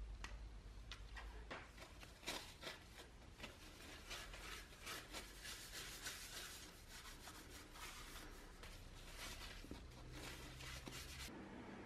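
Paper towel soaked in alcohol rubbing over a polished steel hatchet head to degrease it: a quick run of soft, hissy wiping strokes that stops suddenly near the end.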